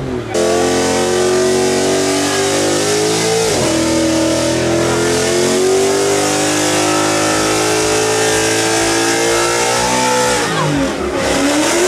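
Car engine held at high revs during a burnout, the wheels spinning over a steady hiss. The revs dip and recover about a third of the way in, then drop away near the end before rising once more.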